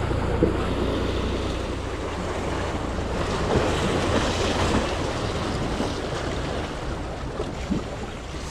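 Small waves washing and splashing against the rocks of a jetty, with wind rumbling on the microphone. The wash swells a little midway through.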